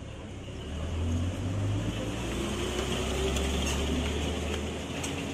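A motor vehicle passing close by: a low engine rumble that builds about a second in and eases off near the end.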